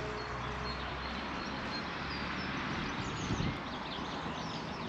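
Outdoor ambience: small birds chirping faintly and intermittently over a steady low rumble.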